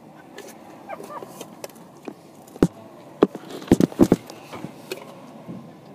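A quick irregular run of about six sharp knocks or clicks in the middle, over the low steady rumble of a moving vehicle.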